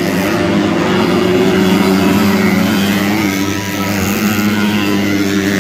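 Several underbone race motorcycle engines revving hard and easing off as the bikes come down a jump and pass close by, their pitch rising and falling with the throttle.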